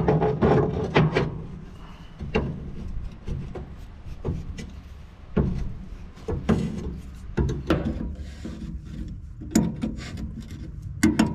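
Adjustable wrench clinking and scraping on the steel fittings of a bulldozer's oil bath air filter housing as they are undone: irregular metallic clicks and knocks.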